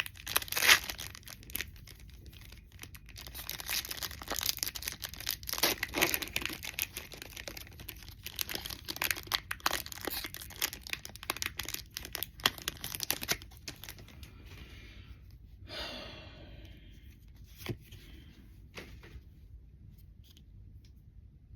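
Foil Pokémon Sun & Moon Lost Thunder booster pack being torn open and crinkled: dense crackling for about the first thirteen seconds, then quieter rustling with a few soft clicks.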